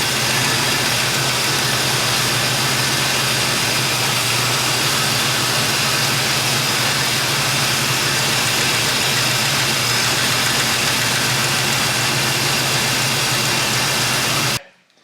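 Small-block Chevy V8 running steadily while its valves are adjusted on the running engine, with cut-open valve covers, to take out the valvetrain rattle. The stock cast exhaust manifolds are still on and leaking. The sound cuts off abruptly near the end.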